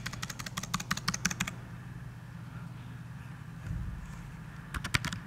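Typing on a computer keyboard: a quick run of key clicks over the first second and a half, then a short burst of a few more keystrokes near the end.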